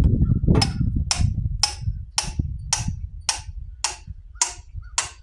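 Even, light metal-on-metal hammer taps, about two a second and nine in all, working a pin on the excavator quick hitch. A low rumble underneath dies away over the first two seconds.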